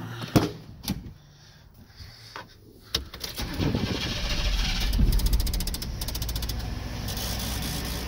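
Clicks and knocks of a truck door being opened, then about three seconds in the 1997 work truck's engine cranks, catches and settles into a steady idle. The engine carries a misfire from a lean number two cylinder whose injector pulses but delivers no fuel.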